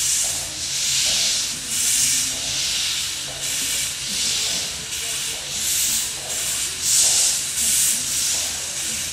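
Narrow-gauge steam locomotive chuffing steadily as it works, its hissing exhaust beats coming a little more than once a second.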